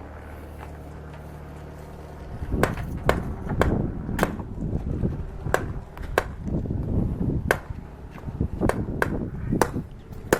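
A steady low hum, then from about two and a half seconds in a long irregular run of sharp knocks and clicks over a low rumble.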